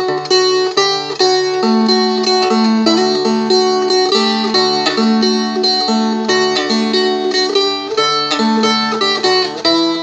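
Seagull Merlin, a four-string strumstick, played by plucking: a steady stream of picked melody notes over sustained low drone strings.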